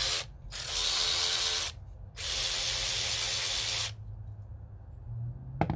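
Hercules extended-reach cordless 3/8-inch electric ratchet with a brushed motor, run free with the trigger in short bursts: the end of one run at the start, then two runs of about a second and a second and a half. A short click near the end.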